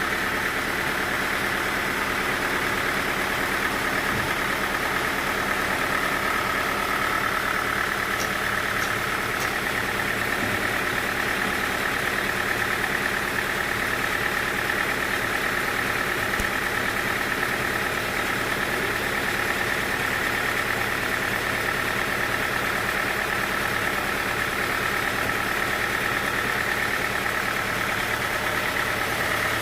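Sawmill machinery running steadily with a constant whine, with no cutting strokes or changes in speed.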